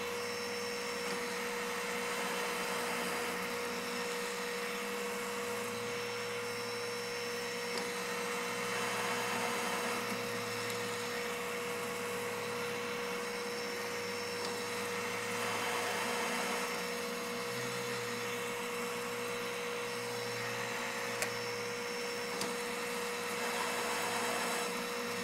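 Manual lathe running with its chuck spinning during single-point threading: a steady motor and gear noise with a constant whine, swelling a little at times, and a couple of light clicks near the end.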